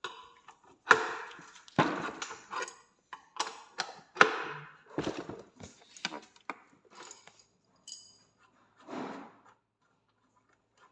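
Irregular knocks and clatter of hard objects being handled and set down, several sharp hits in the first few seconds, then a short scrape about nine seconds in.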